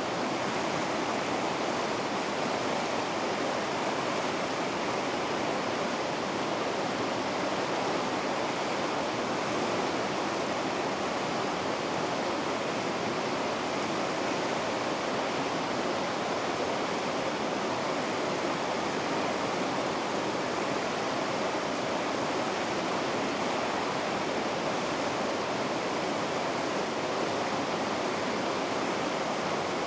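River rapids rushing steadily, an even, unbroken roar of white water.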